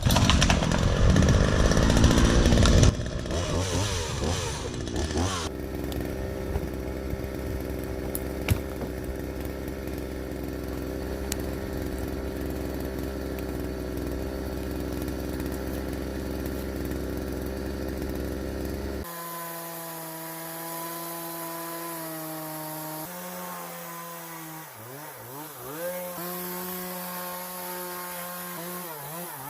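Two-stroke chainsaw cutting wood for the first few seconds, then running steadily. About 19 seconds in the sound changes abruptly to a cleaner, steadier engine tone, with a couple of brief dips and rises in pitch.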